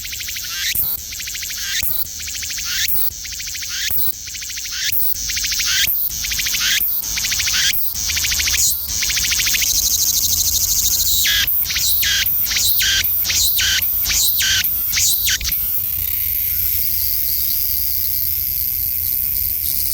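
Cicada singing loudly: a high-pitched buzzing song that swells in regular pulses about once a second, then speeds up to about three pulses a second, then settles into a steady unbroken buzz for the last few seconds.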